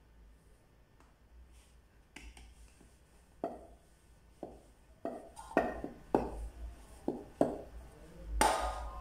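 Wooden rolling pin rolling out a sheet of dough on a wooden board, making a series of short knocks from about two seconds in that grow louder and more frequent toward the end.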